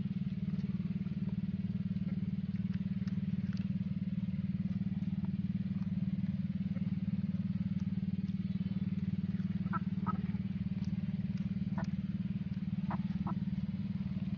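A small engine running steadily, a constant low drone that does not change in pitch or level. A few faint short chirps come in the second half.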